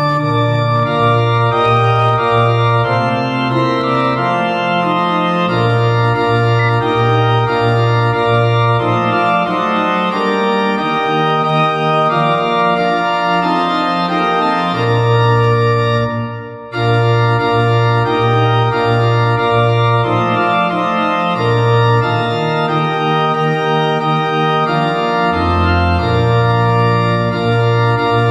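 Organ-voiced playback of a four-part hymn, sustained chords moving over a steady bass line, with one short break about sixteen seconds in.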